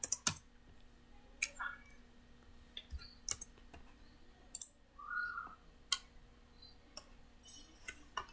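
Computer mouse and keyboard clicks while working in CAD software: single sharp clicks, roughly one a second.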